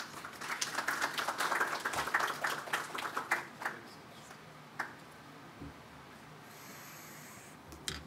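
Audience applauding for about three seconds, starting about half a second in and dying away by about four seconds. Then two single knocks sound later on over quiet room noise.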